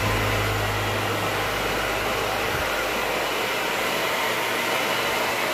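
Hand-held hair dryer blowing steadily while long hair is combed and dried.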